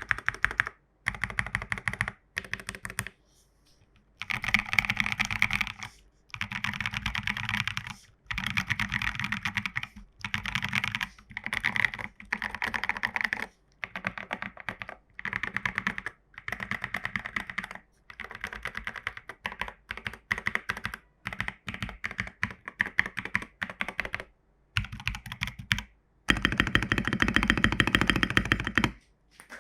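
Mechanical keyboard with tactile Prevail Epsilon switches and MT3 keycaps, typed on in fast bursts of rapid clacky keystrokes. Each burst lasts a second or two, with short pauses between, and a longer, louder run near the end.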